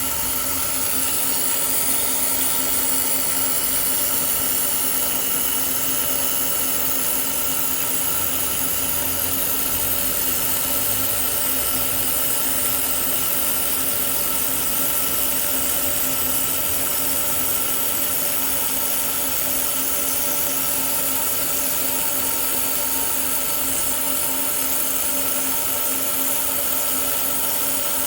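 A 1500 W air-cooled laser welding machine running: a steady hum with a few fixed tones and a high hiss, unchanging throughout.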